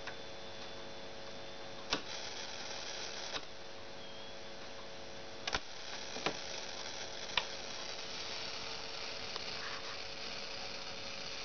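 Steady hiss and electrical hum from a radio/TV alarm clock, with a few sharp clicks. The hiss turns brighter for about a second and a half near the start, and again from about halfway through.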